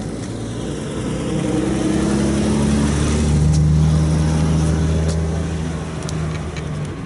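Ferrari 360 Modena's flat-plane V8 running at low speed as the car drives slowly past, its exhaust note swelling to its loudest about halfway through and then fading.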